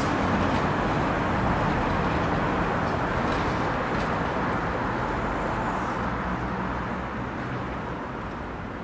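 Double-deck electric tram running away along its track: a steady rumble with a few sharp clicks in the first few seconds, fading as it draws away.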